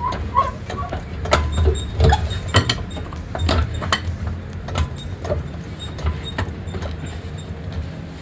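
Irregular metallic clicks and knocks from a car jack being handled and worked under a small 4x4, over a low rumble.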